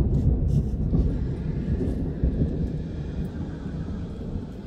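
Thunder rumbling low and rolling, loudest at the start and slowly dying away over a few seconds.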